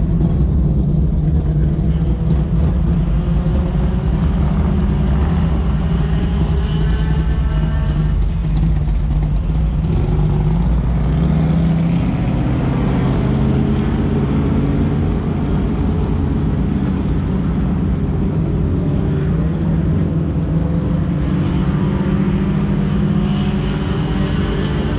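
Modified race car engine idling loud and steady, with engine revs rising and falling now and then.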